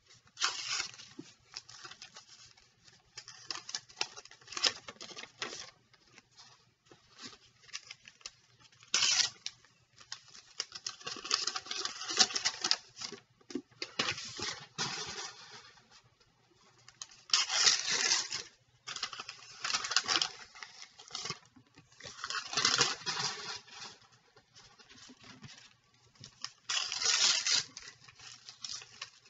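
Small white trading-card packs being torn open and their wrappers crumpled by hand, in irregular bursts of tearing and crinkling, with the loose cards rustling between them.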